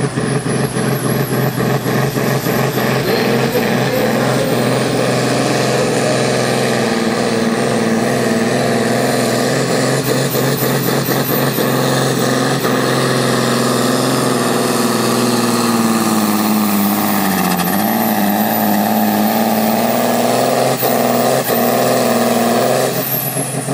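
John Deere pulling tractor's diesel engine running flat out under heavy load as it drags a weight-transfer sled. The engine note sags and wavers about two-thirds of the way through as it lugs down, then cuts off abruptly near the end.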